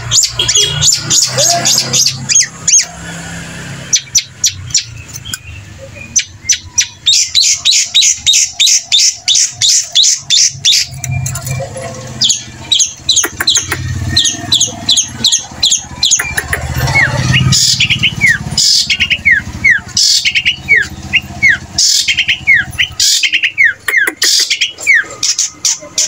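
A caged long-tailed shrike (pentet) sings fast runs of short, high chirps and twitters. From about two-thirds of the way in come repeated short falling whistles. The owner describes this song as mimicry of other bird species.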